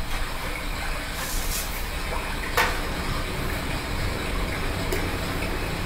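A small electric fan blowing with a steady rushing noise, with a sharp click about two and a half seconds in.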